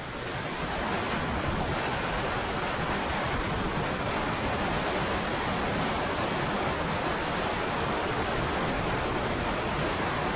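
Steady rushing wind noise: an even hiss with no clear engine tone, fading in over the first second.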